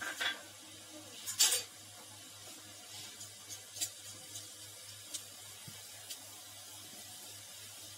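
Cumin seeds frying in a little hot oil in a steel kadhai: scattered crackles and pops, one louder about a second and a half in, over a faint low hum.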